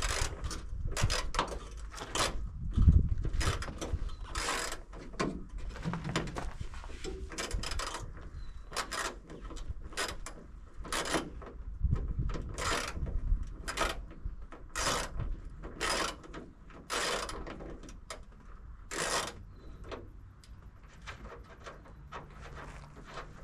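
Hand ratchet wrench working bolts loose: a series of short, sharp ratcheting strokes, about one every half second to a second, slowing toward the end.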